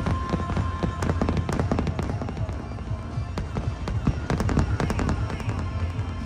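Aerial fireworks going off in quick succession, many sharp bangs and crackles, over music with a steady low beat.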